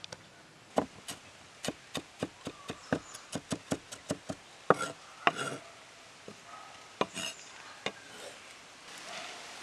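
Steel cleaver chopping green chillies on a wooden cutting board: a quick run of knocks at about four a second, then a few slower, louder chops. Near the end the blade scrapes across the board.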